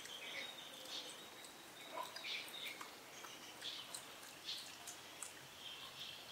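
Faint, scattered short high chirps of birds calling, over a low steady hiss.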